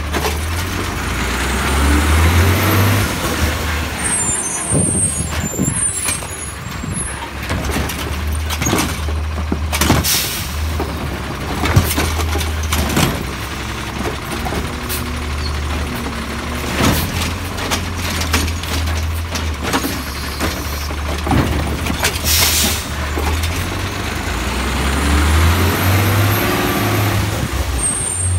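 Automated side-loading garbage truck at work: the engine running and revving up twice as it pulls forward, about 2 seconds in and near the end, with air-brake hissing and repeated metallic clanks from the hydraulic arm gripping and handling a trash cart.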